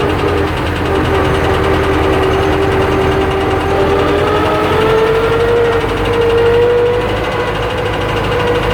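The diesel engine of a YuMZ-based EO-2621 backhoe-loader running steadily with a knock that the owner puts down to the pistons. A held whine rises slightly in pitch about five seconds in.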